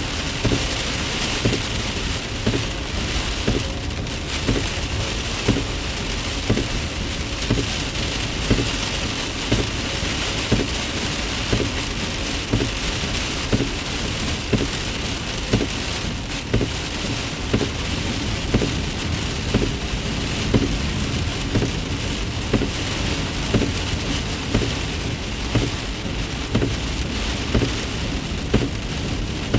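Heavy rain pelting a moving car, a dense steady hiss of rain over road noise, with a low thump recurring about once a second.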